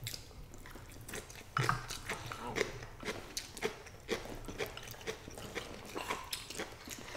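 Two people eating stir-fried egg noodles: chewing and slurping, with irregular light clicks of chopsticks against small glass bowls.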